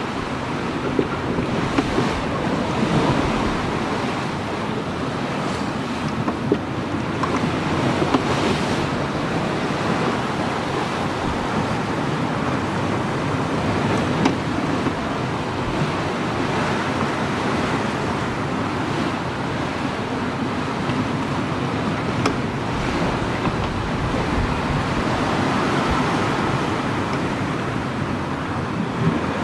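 Seawater rushing and splashing along the hull of a two-masted sailing schooner, with wind blowing over the microphone.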